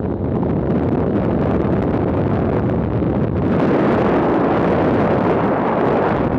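Loud, steady wind rush buffeting the microphone of a camera on a moving KTM motorcycle, growing louder and brighter about three and a half seconds in as the speed picks up.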